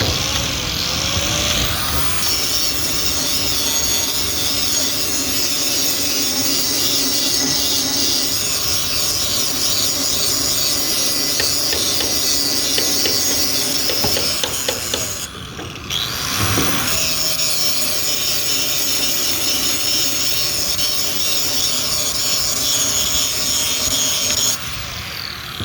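Power grinder grinding welded metal, a steady high-pitched grinding. It stops for about a second roughly fifteen seconds in, then starts again.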